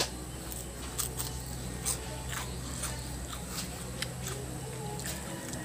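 Biting into and chewing a fried vegetable fritter, with scattered sharp crunching clicks over a steady low hum.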